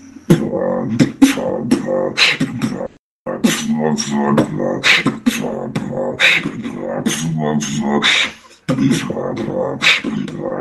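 Beatboxing: a drop of quick vocal kick and snare sounds over pitched bass tones and hummed notes. The sound cuts out completely for a moment about three seconds in and dips briefly again about eight seconds in.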